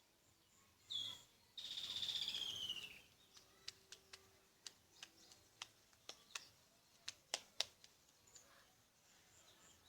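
A small songbird sings: a short falling whistle, then a rapid trill of about a second that descends in pitch. It is followed by a scattered series of sharp clicks or ticks, the loudest near the end.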